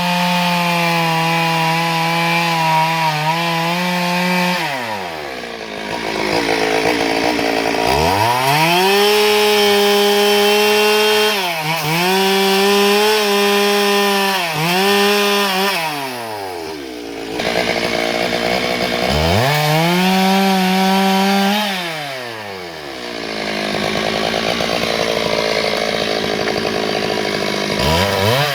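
Stihl MS 382 two-stroke chainsaw cutting dry eucalyptus. It runs at full throttle in the cut, with the revs sagging briefly under load, and falls back to idle between cuts; this happens three times, and it revs up again right at the end.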